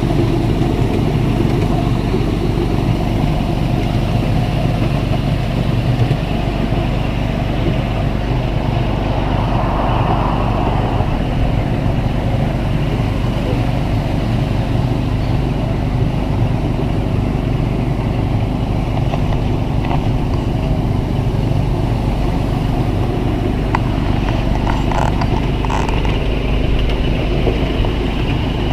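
Miniature railway train running steadily along its track, heard from a passenger carriage: a continuous low rumble from the locomotive and wheels, with a few short ticks about three-quarters of the way through.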